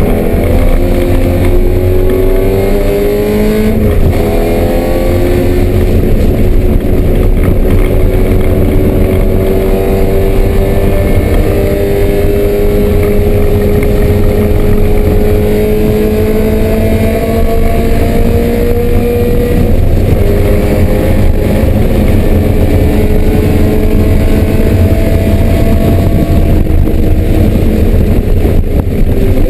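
BMW M3 race car engine running hard on track, its pitch climbing slowly through long pulls and dropping back at gear changes about 4 and 20 seconds in.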